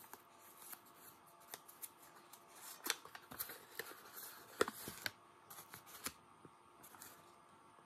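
Faint crinkling and crackling of a creased sheet of paper in the hands as a folded origami butterfly is opened out flat, in short irregular crackles with a few sharper ones around the middle.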